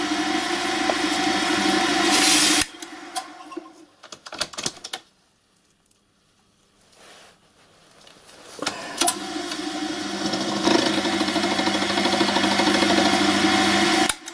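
Small milling machine running with a steady hum, switched off about two and a half seconds in, followed by a few light knocks and a quiet spell. It starts up again about nine seconds in and runs until it stops just before the end.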